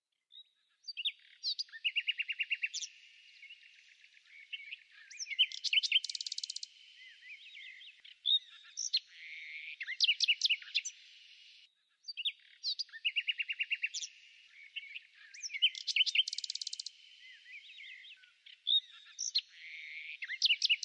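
Songbirds chirping and trilling: quick chirps, short rising and falling whistles and rapid buzzy trills. The same ten-second passage of song plays twice over.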